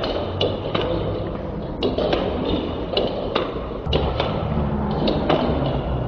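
Table tennis balls clicking off bats and tables in quick, irregular strokes, a few a second, from rallies at several tables at once.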